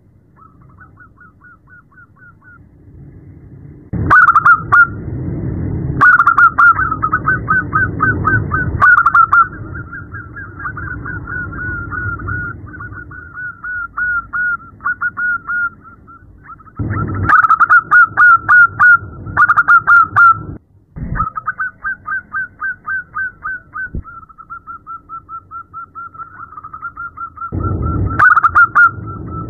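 Zebra dove (perkutut) calling in long trains of short, quick staccato coos, phrase after phrase with brief breaks. It starts faint and is louder from about four seconds in. The call is offered as a female zebra dove calling a male, used to coax caged males into song.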